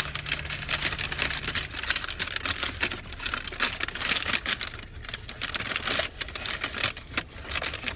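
Close-up crinkling and crackling of takeout food packaging being handled, dense irregular clicks, over a low steady hum.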